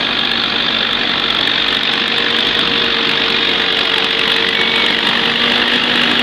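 Vehicle engine running steadily, a constant loud drone with a faint steady hum under it.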